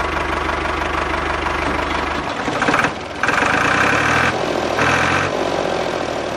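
Tractor diesel engine running with a knocking idle. Its note changes about two seconds in, and short bursts of a higher tone come in three times after that.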